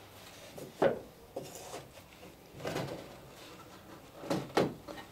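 Several short wooden knocks and rubs as a long wooden plank is shifted and pressed into place against the boat's moulds and the plank below.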